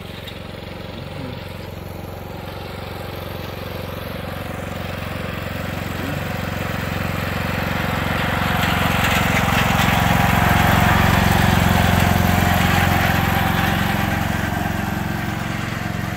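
Riding lawn mower's engine running steadily as the mower drives past, growing louder as it approaches, loudest about two-thirds of the way through, then fading slightly as it moves away.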